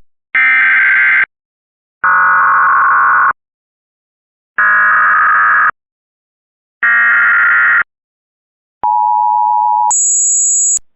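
Emergency Alert System SAME header: four buzzy digital data bursts of about a second each, with short silences between them. Then a brief steady two-note EAS attention tone, and near the end a short, much higher-pitched version of the tone that cuts off abruptly.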